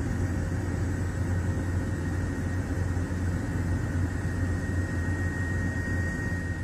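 Steady aircraft engine noise: a low hum with a thin high whine that grows a little stronger near the end.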